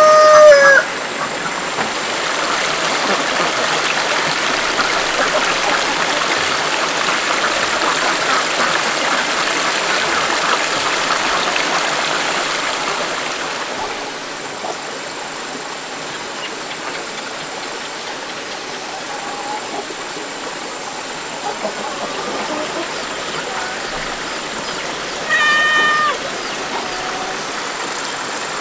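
Steady rushing noise like running water, louder for the first dozen seconds and then dropping back. A rooster's crow tails off right at the start, and a short animal call sounds once near the end.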